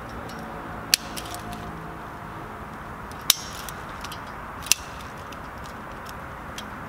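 Sharp metal clicks from a piston ring plier being worked around a piston ring: three loud clicks, about a second in, past three seconds and near five seconds, with a few lighter ticks between, over a steady hiss.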